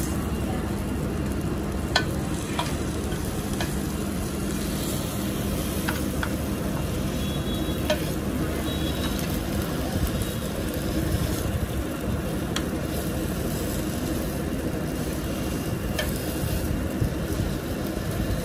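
Meat sizzling on a tabletop griddle, a steady frying hiss over a low steady hum, with a few light clicks of tongs and utensils.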